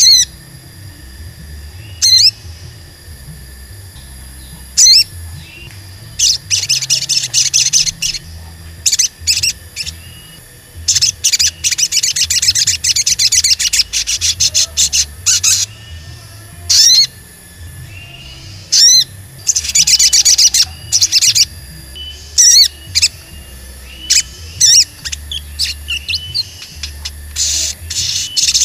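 Olive-backed sunbird (sogon) calling: sharp, high 'cuit' notes a couple of seconds apart, then repeated bursts of fast, high twittering song a few seconds long.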